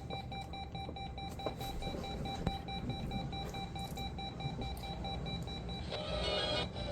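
A weather alert radio's built-in alarm beeping rapidly at one steady, shrill pitch, the receiver's signal that a warning is coming through. It stops about six seconds in, and louder radio audio comes in near the end.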